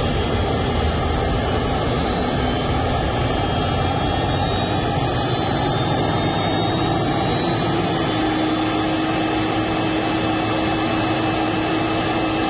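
Large high-bypass turbofan jet engine running during start-up: a steady rush of noise with faint whines that slowly climb in pitch, and a steady mid-pitched hum that joins about eight seconds in.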